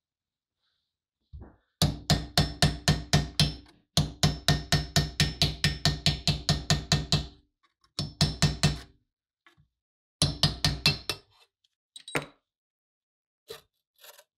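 Rapid hammer taps on a punch driving off the rusted steel end cap of a railroad lantern housing, about five blows a second in runs of a few seconds, each blow ringing through the metal body, followed by a few single knocks as the cap comes loose.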